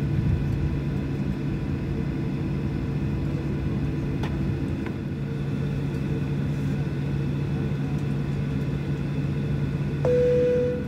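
Cabin noise inside a Boeing 737-700 taxiing after landing: a steady hum and rumble from its CFM56-7B engines at idle, with several steady tones. About ten seconds in, a louder single steady tone comes in and holds for under a second.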